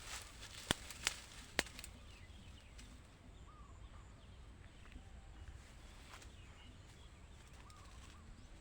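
Three sharp clicks in the first two seconds, then quiet outdoor background with a few faint bird chirps.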